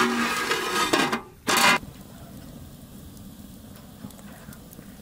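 Metal lid of a large aluminium cooking pot set down onto the pot with a ringing metallic clatter, then a second short clatter about a second and a half in. Afterwards a wood fire crackles faintly under the pot.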